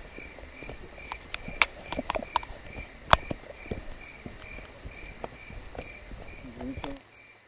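Crickets chirping in a steady rhythm, about two high chirps a second, with scattered clicks and knocks over them; it all drops away near the end.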